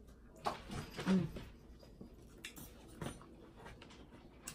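Eating sounds at a table: chewing and seafood shells being cracked and peeled by hand, with a few small clicks and a brief hum-like sound about a second in.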